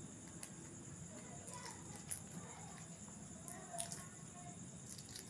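Faint, scattered small clicks and taps of quail eggs being cracked and their shells picked open by hand, over a steady high-pitched whine.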